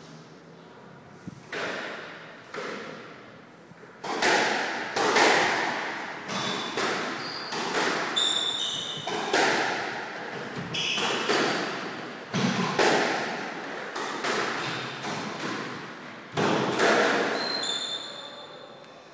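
Squash rally: the ball hit by rackets and smacking off the court walls, a couple of strikes early on, then a quick run of hits about every half second to second from about four seconds in until near the end, echoing in the enclosed court. Short high squeaks of court shoes on the wooden floor come around the middle and near the end.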